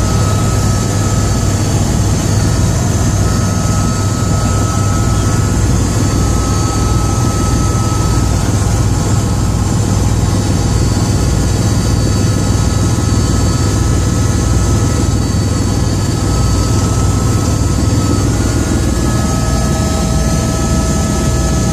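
Helicopter in flight heard from inside the cabin: a steady drone of rotor and engine, with a fast, even low throb from the rotor blades and faint steady whining tones above it.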